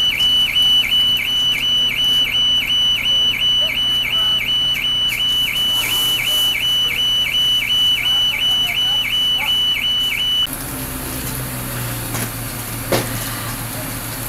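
A high electronic alarm tone that dips in pitch about three times a second sounds without a break, then cuts off about ten seconds in. A steady low engine hum runs underneath, with a single knock near the end.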